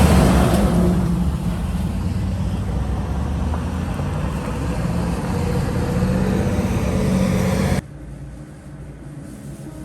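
Streetcar running, a steady rumble with a low motor hum; it cuts off abruptly near the end.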